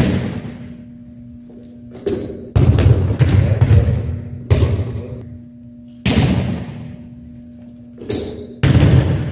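Volleyballs being struck and hitting the hardwood gym floor: sharp thuds that echo in the large hall, several times, with two short high squeaks, each followed by a stretch of dense knocking and scuffling.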